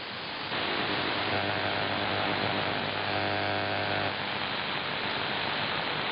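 Perseus shortwave receiver's AM audio as it tunes through 5 kHz channels of the 19-metre band: a hiss of static, with a steady low hum from one carrier that comes in about half a second in and cuts off just after four seconds as the tuning steps to the next channel.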